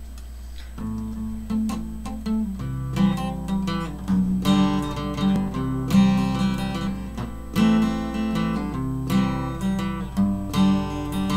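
Acoustic guitar being played, picked and strummed chords starting about a second in, over a steady low hum.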